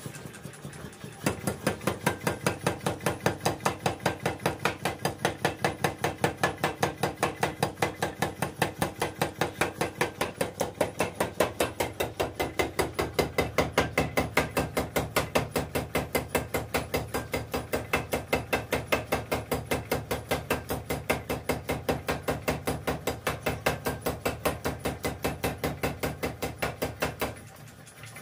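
Flywheel-driven mechanical power hammer pounding a steel sickle blade held in tongs on its die: a fast, even run of metal-on-metal blows, several a second, over the machine's steady hum. The blows start about a second in and stop shortly before the end.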